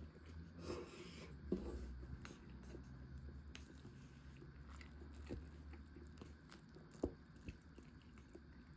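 Faint eating sounds: soft chewing and scattered small clicks over a low steady hum, with one sharper click about a second and a half in and another about seven seconds in.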